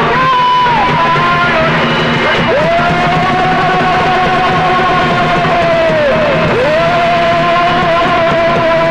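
Live chhau dance music: a melody of long held notes that waver and bend at their starts and ends, over a steady low accompaniment.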